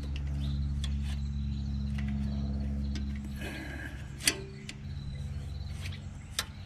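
Light metallic clicks and taps of hands working the choke and throttle linkage on a lawn tractor's flathead engine, with one sharper click a little past the middle and another near the end, over a steady low hum.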